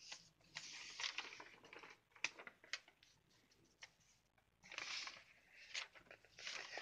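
Handwritten sheets of lined notebook paper being turned and shuffled by hand: soft rustling in a few bursts, with some sharp crinkles and clicks in between.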